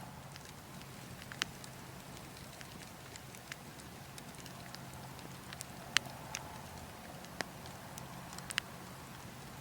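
Wood logs burning, crackling with scattered sharp pops, the loudest about six seconds in, over a steady low rumble.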